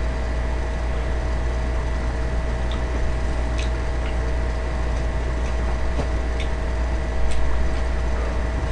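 Steady low hum of an electric fan, with a few faint clicks of chopsticks against the bowls as noodles are eaten.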